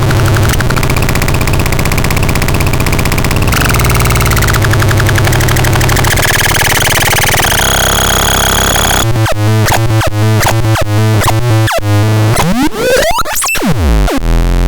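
Harsh electronic synthesizer noise from the XAPEDAX: a dense buzzing drone that steps between pitches. About nine seconds in it breaks into a rapid stuttering pulse, with fast rising and falling pitch sweeps near the end.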